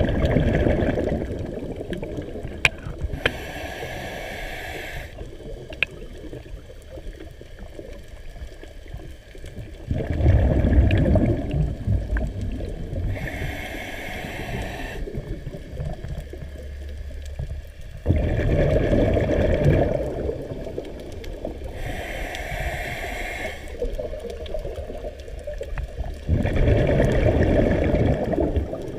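Scuba diver breathing underwater through an open-circuit regulator: a short hiss on each inhale and a louder rush of bubbling exhaust on each exhale, repeating about every eight seconds. Four exhalations and three inhalations.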